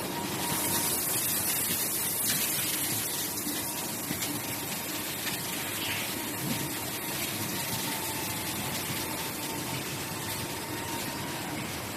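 Wide belt sander for primer sanding running steadily: a continuous rushing noise with a faint hum, with a brighter hiss in the first couple of seconds.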